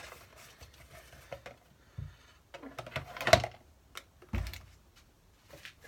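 Objects being handled and put down: scattered light clicks and knocks, the loudest a sharp knock about three seconds in, followed a second later by a dull thump.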